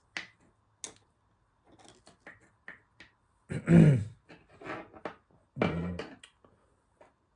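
Scattered clicks and knocks of small plastic tubs and metal tweezers being handled on a table around a glass jar, with two louder knocks about halfway and three-quarters through.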